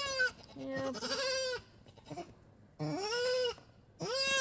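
Young buck goat kid bleating several times, short arched calls, while held down and banded for castration: he is protesting the restraint.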